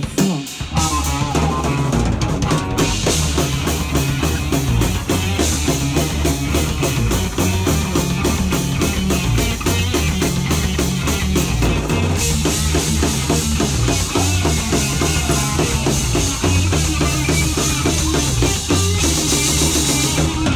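A live band playing an instrumental stretch with no singing: a drum kit keeping a steady beat with cymbals, and bass and electric guitar, loud throughout.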